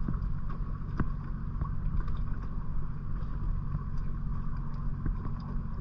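Sea-Doo Switch's engine running steadily at low idle speed, with a few faint ticks over it.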